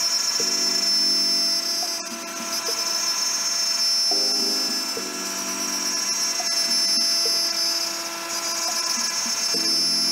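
A Makita router on a DIY CNC milling aluminum: a steady high whine from the spinning cutter. Under it, lower tones from the machine's motors shift in steps every few seconds as the moves change.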